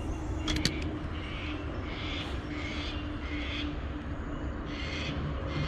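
Spinning reel being cranked to retrieve a lure: a soft, repeating winding sound about twice a second. There are a few sharp clicks about half a second in, over a low steady rumble.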